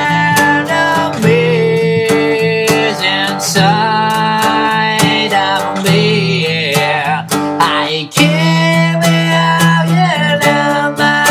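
Acoustic guitar strummed steadily, with a man singing the melody in mumbled, half-formed words: a first rough recording of a song whose lyrics are still taking shape.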